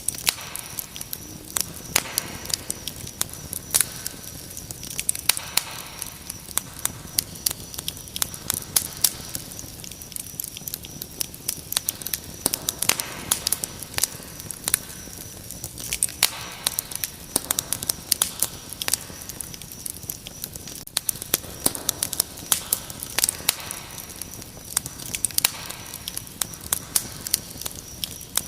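Wood fire crackling, with frequent sharp, irregular pops and snaps, over a steady high-pitched cricket chirping.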